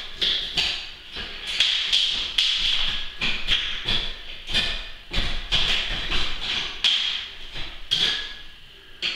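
Irregular knocks, taps and thumps from hand work on a new window unit being fitted into the opening cut in a glass block wall.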